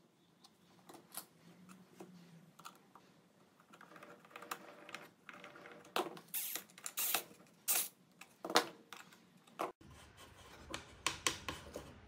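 Hand-handling noises of small wooden parts on a plywood box: a few soft taps and scrapes, then louder irregular clicks and knocks from about six seconds in as a glued wooden piece is pressed and fitted against the plywood case, with a run of quick lighter clicks near the end.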